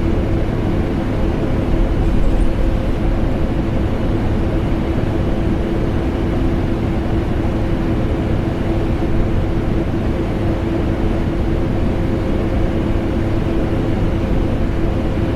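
Vacuum cleaner motor running steadily, blended with air conditioner noise: a constant, loud whooshing drone with a steady hum.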